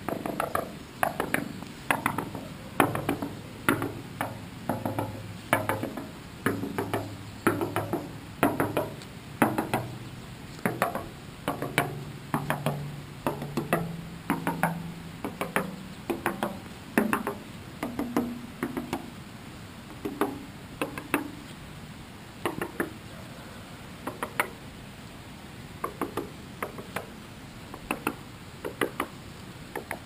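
A hand knocks again and again on a hollow fiberglass pole, in quick groups of two or three knocks about once a second, each knock with a short hollow ring. The ring climbs gradually in pitch, and in the second half the knocks come less often and more softly.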